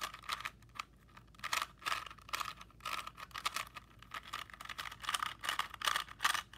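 Plastic Rubik's Cube being twisted by hand: a run of quick, irregular clicks and rattles as its layers turn.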